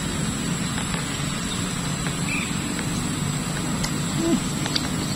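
Steady outdoor background noise: a low rumble with a thin, steady high whine over it and a few faint ticks.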